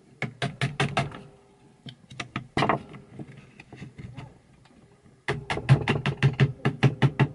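Screwdriver driving screws into an electric drill's plastic housing during reassembly: runs of sharp, quick clicks, about six a second, with a few single clicks between the runs.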